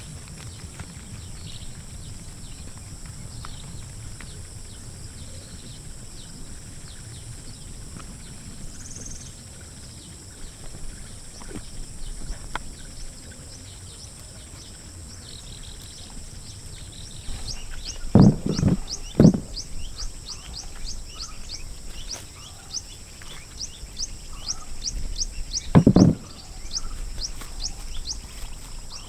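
Outdoor rural ambience with a steady high-pitched hum, and from about two-thirds of the way in a fast run of short repeated chirps, about three a second. Three heavy thumps stand out as the loudest sounds: two a second apart, and one more near the end.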